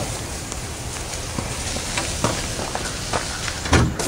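Footsteps crunching on dry pine needles and dirt while the heavy steel-and-plywood truck rack is carried, with scattered light knocks and one heavy thump near the end.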